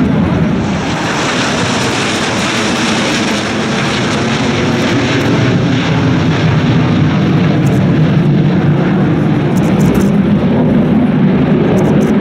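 Chengdu J-10 jet fighters flying over in a four-ship formation, their jet engines making a loud, continuous rushing noise. A hiss is strongest in the first half, and a deeper rumble builds toward the end.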